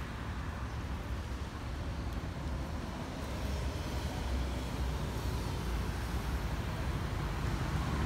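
Steady low rumble of outdoor background: traffic noise with wind buffeting the microphone. No duck or gull calls stand out.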